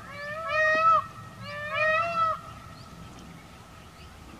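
Indian peafowl (peacock) calling: two loud calls about a second apart, each made of two notes that rise and fall in pitch. The calls end about two and a half seconds in.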